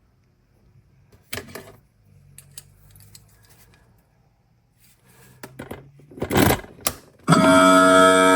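Keys and an ignition switch being handled: a series of small metallic clicks and short rattles, one louder scrape about six seconds in. Just after seven seconds a loud held musical chord begins.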